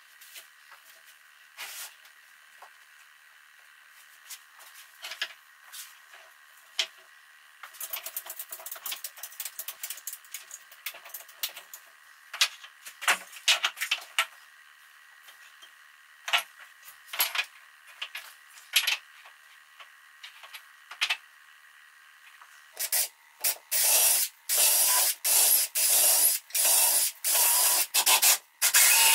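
Sandpaper on a sanding block rubbed by hand along a wooden frame, in scattered light rasping strokes. Near the end, a run of much louder, quick, evenly repeated rasping strokes.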